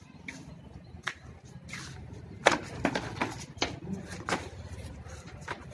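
A German shepherd nosing and pawing at a small box on concrete gives irregular sharp knocks and scrapes. A few are scattered early on, then a busy run starts about halfway, with the loudest knock at its start.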